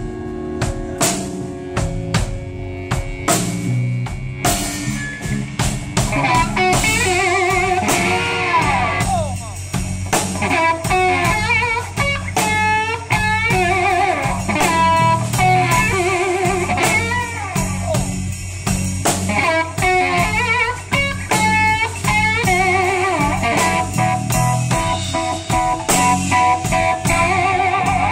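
Live blues-rock band playing an instrumental stretch. A distorted electric guitar on a Gibson Les Paul solos over drums and bass, with bent, wavering notes and quick runs.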